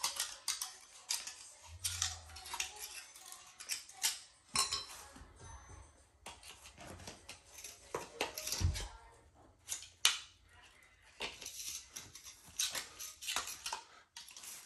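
Aluminum Z-bar carpet edge strip being pried up and bent back with hand tools: irregular metallic clinks, taps and scrapes.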